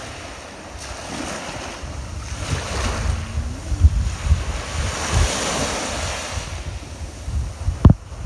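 Small waves breaking and washing up a sandy shore, the surf swelling as they run in, with wind buffeting the phone's microphone in low rumbles. A couple of sharp thumps come near the end.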